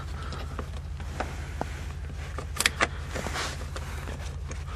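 Rubber door weather stripping being pressed back into a car's door frame by hand, giving a few soft clicks and rustles. A steady low hum runs underneath.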